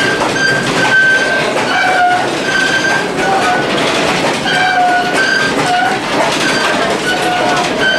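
Passenger train cars rolling along the track, heard from the gangway between cars: a loud, steady running rumble with short, high metallic squeals about twice a second, irregularly spaced.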